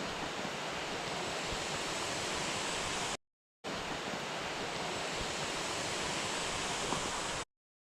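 Steady rush of a waterfall's water, cutting out abruptly about three seconds in, returning half a second later, and stopping suddenly near the end.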